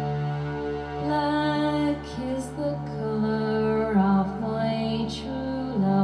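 Slow Celtic ballad music: held keyboard chords with a melody line moving over them.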